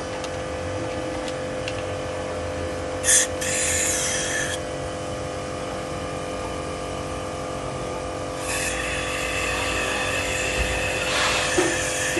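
An engine running steadily, with a short hiss about three seconds in; from about eight and a half seconds it gets louder and higher.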